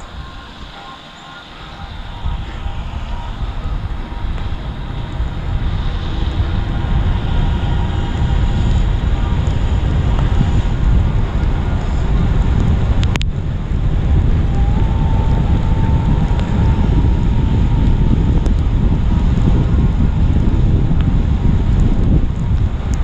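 Wind buffeting the microphone of a camera on a downhill mountain bike, together with the rumble of the bike rolling over rough, wet trail. It builds over the first several seconds as speed picks up, then stays loud. There is a single sharp click about 13 seconds in.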